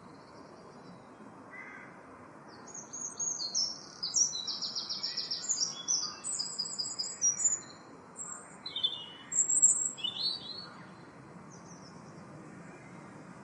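Eurasian blackbird singing: a run of high, rapid twittering phrases lasting several seconds, starting about three seconds in and stopping a few seconds before the end, over a steady background hiss.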